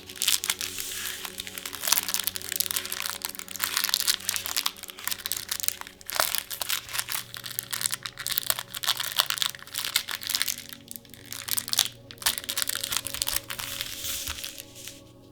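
Plastic packaging of a trading-card gift box being handled, crinkling and crackling in bursts with a few short pauses, over soft background music.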